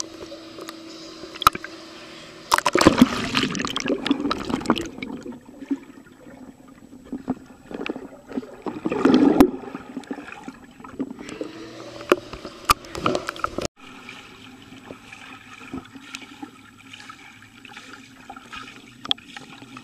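Swimming-pool water splashing and gurgling around a camera dipped underwater, with scattered sharp clicks. A low steady hum stops about two and a half seconds in as a loud stretch of splashing begins; another loud burst of water noise comes about nine seconds in.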